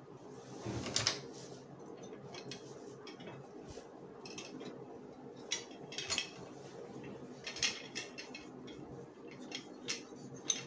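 Stacked, laced black armour plates of a samurai shoulder guard (sode) clacking and clinking against each other as they are handled and lifted from their box, with rustling of packing. A low steady hum sits underneath.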